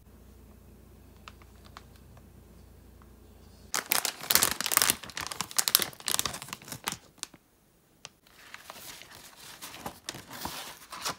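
Thin plastic packaging of rice paper wrappers crinkling as it is handled and opened, starting about four seconds in. After a short pause, softer crinkling and rustling come as a dry, stiff rice paper sheet is pulled from the packet.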